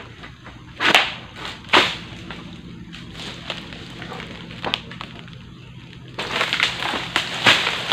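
Egrek, a long-pole sickle, hacking at oil palm frond bases: sharp cutting strokes about a second in, near two seconds and near five seconds. Near the end comes a longer stretch of rustling and crackling palm fronds.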